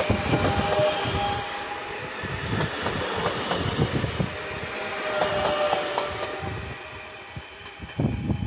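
SNCF double-deck electric regional train running past close by: a rumble with clicks from the wheels over the rail joints and a faint whine, fading as it draws away. About eight seconds in, a louder train rumble comes in suddenly.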